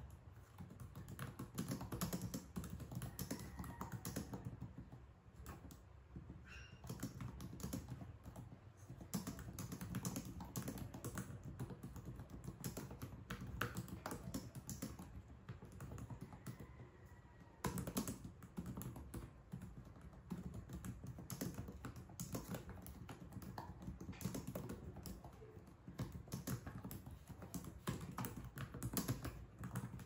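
Typing on an HP ProBook laptop's keyboard: a quick, irregular run of key clicks broken by brief pauses.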